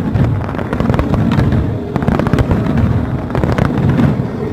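Fireworks finale: rapid, overlapping bangs and crackles of shells bursting over a continuous low rumble.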